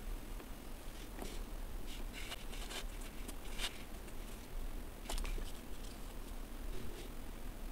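Kinetic sand crumbling and crackling as plastic sand molds are worked in and pried out by hand. The sound comes as irregular short, crisp crackles and taps, with a cluster a couple of seconds in and two sharper ones near the middle.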